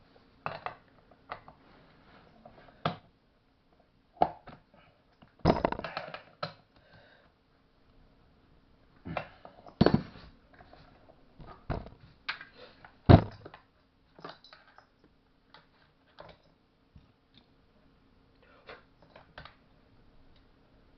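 Metal tools and small parts knocking and clinking during hand work, in irregular sharp knocks, the loudest about thirteen seconds in, over a faint steady hum.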